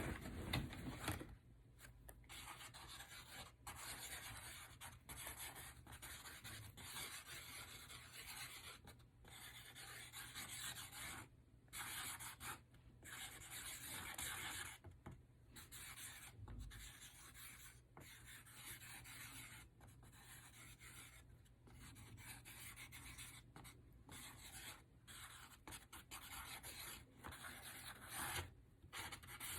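Sharpie marker drawing on paper: faint scratching of the felt tip in strokes of one to a few seconds, with short pauses between them.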